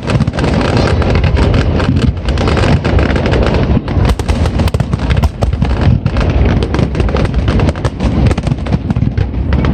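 Fireworks display going off: a dense, rapid run of overlapping bangs and crackles from many bursting shells, over a continuous low rumble.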